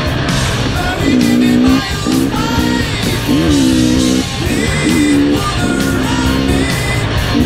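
Rock music with guitar and a sung melody.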